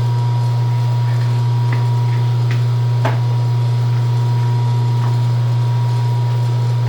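Steady low electrical hum of running shop machinery, an electric motor drive, unchanged throughout, with a few faint light clicks from handling at the lathe.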